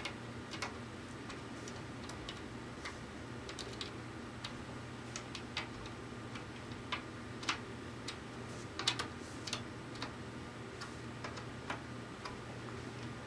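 Irregular light clicks of a quarter-inch key on a banjo's tension-hook nuts as the new head is tightened, a few louder ones past the middle, over a steady low hum.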